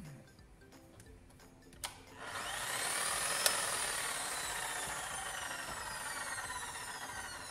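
Electric jackhammer's brushed motor clicked on, whining quickly up to speed, then clicked off and spinning down in a long falling whine: the tool has power again now that its broken carbon brush terminal is repaired.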